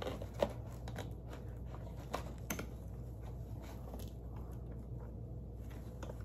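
Faint scattered clicks and rustles of hands working an arm into the shoulder and sleeve of a Bloodthirsty Betty animatronic prop, over a low steady hum.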